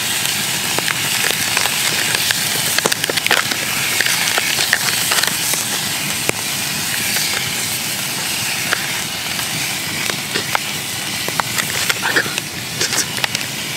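Wood campfire crackling with frequent sharp pops, over a steady hiss of beef offal and sausages sizzling in a metal pan set in the flames.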